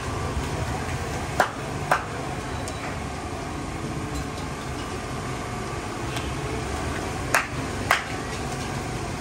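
Sharp metallic clanks of a metal utensil knocked against metal: two strikes half a second apart, then another such pair about six seconds later, each with a short ring. Steady background noise runs beneath them.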